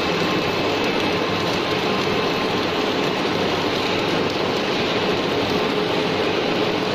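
Robotic MIG welding arc crackling and sputtering steadily as it lays a weld on a pipe, with a faint steady hum underneath.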